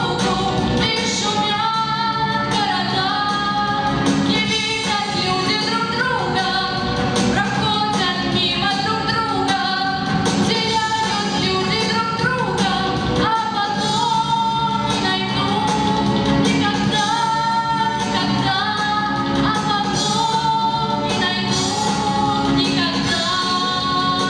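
A female vocalist sings a melodic song over a full instrumental backing track, without pause.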